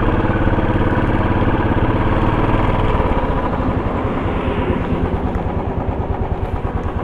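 Royal Enfield motorcycle engine running under way with a steady exhaust beat. About three seconds in it eases off a little, and the separate exhaust pulses come through more clearly.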